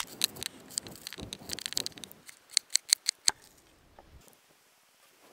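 Knife slicing half an onion on a wooden chopping board: crisp cuts, then a quick run of about six sharp knocks of the blade against the board a little under three seconds in.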